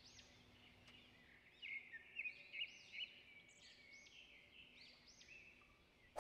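Faint birdsong: quick repeated rising-and-falling whistled notes, several a second, with a sharp click at the very end.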